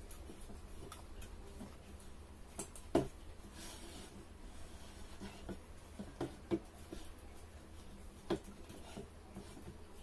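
Aluminium drink cans being slid and shuffled about on a table, giving a few scattered light knocks and a brief scrape over a low steady hum.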